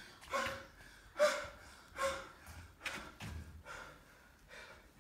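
A man gasping and panting hard for breath after running: a heaving breath about every second, the loudest about a second in, easing off toward the end.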